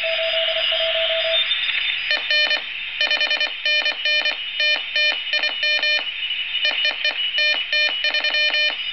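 Shortwave receiver hiss with a single steady Morse tone for about the first second and a half, then the keyer's raspy square-wave sidetone sending Morse code from about two seconds in until just before the end. The sidetone is the keyer processor's square wave fed straight into the receiver's audio amplifier.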